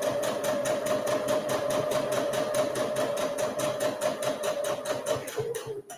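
Sewing machine stitching a seam at a steady speed, its motor humming under rapid, even needle strokes; it slows about five seconds in and stops just before the end.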